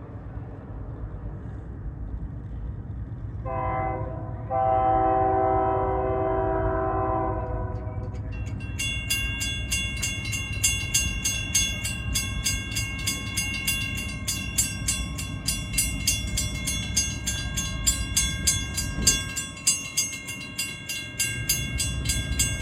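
Union Pacific freight locomotive horn sounding one long chord-like blast about three seconds in. A few seconds later the grade-crossing warning bells start ringing in a fast, even repeat as the crossing activates for the approaching train, over a low rumble.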